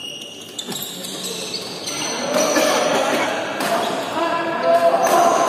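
Badminton racket striking the shuttlecock with a sharp crack at the start, and again about half a second later. From about two seconds in, a growing clamour of voices in the hall swells as the rally ends.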